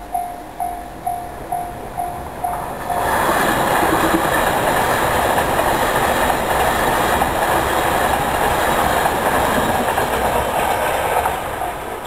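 Level-crossing warning bell ringing at about two and a half strikes a second. About three seconds in, an Anpanman-painted JR train passes over the crossing close by, its running noise and wheel clatter drowning the bell, then easing off near the end.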